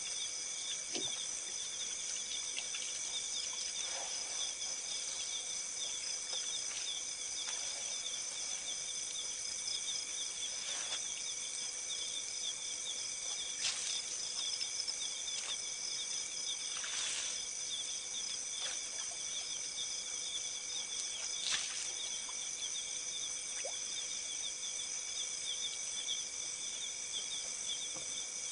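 Night chorus of crickets and other insects: several high, steady trills, one of them pulsing rapidly, running without a break. A few brief, sharp sounds stand out now and then, the loudest about two-thirds of the way through.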